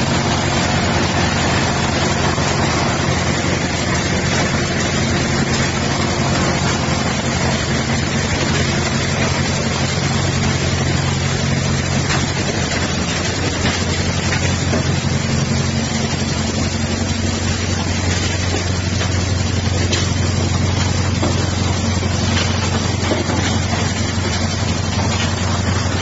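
Diesel-driven mobile impact crusher plant running: a loud, steady engine drone under the rough noise of the crusher working, its hum changing pitch slightly about halfway through.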